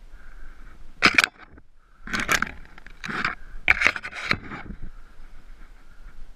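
A series of short scraping noises, four bursts within about three and a half seconds, over a faint steady high hum.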